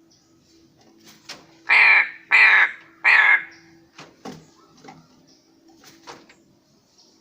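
Black crow cawing: three loud, harsh caws in quick succession about two seconds in, followed by a few fainter short sounds.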